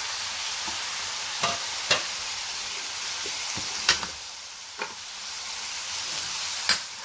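Onions, mutton and freshly added chopped tomatoes sizzling in hot oil in a karahi, a steady frying hiss. A metal spoon stirring them clinks sharply against the pan about five times.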